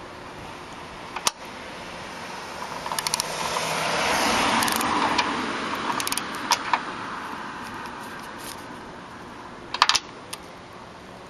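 A passing vehicle's rush swells and fades over several seconds, while a torque wrench and hardware are handled: scattered metallic clicks and short runs of rapid ratchet-like clicking, the loudest near the end.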